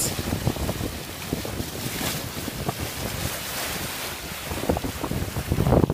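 Wind buffeting the microphone over the rush and splash of a boat's bow wave moving through the sea. The gusts are loudest near the end.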